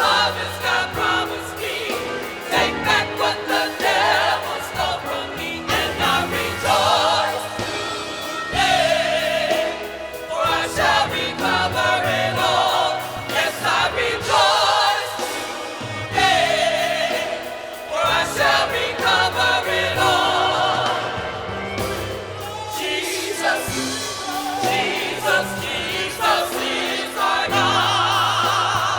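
Small church choir singing a gospel song, with held bass notes under the voices.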